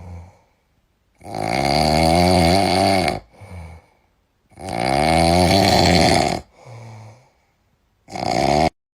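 Loud snoring: two long snores of about two seconds each, each followed by a short weaker breath, then a third, shorter snore near the end.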